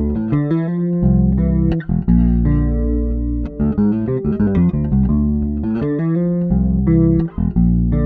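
Electric bass guitar played through a Zoom B1X Four multi-effects pedal on its analog chorus patch. It plays a plucked line of sustained notes with sharp attacks and a few brief gaps between phrases.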